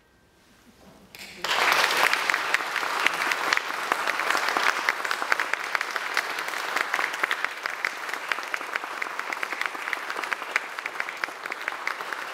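Audience applauding. The clapping breaks out suddenly after about a second of near silence, then carries on steadily.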